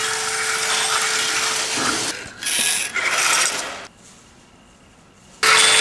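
Electric toy train sound installation, its reed switches triggering a bell and musical toys. A dense mechanical clatter and rattle runs over a steady tone. The sound cuts out about two seconds in, bursts back briefly around three seconds, turns much quieter for about a second and a half, then starts again loudly near the end.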